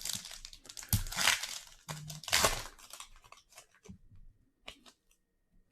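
A trading-card pack wrapper being torn open and crinkled, in a few rasping rips over the first three seconds, followed by a few faint clicks.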